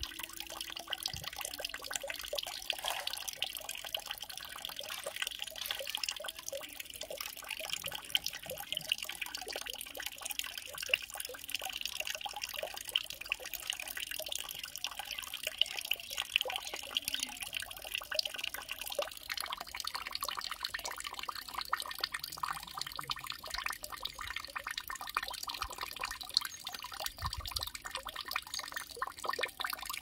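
Nature recording of running water: a steady trickling with many small drips and splashes.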